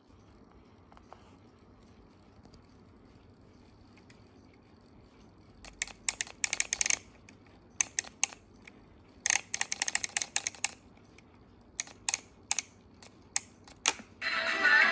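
Bursts of sharp clicks and crackles as a 1970s Copal RD-700 clock radio is operated between stations. Near the end, music from a radio station suddenly comes through it.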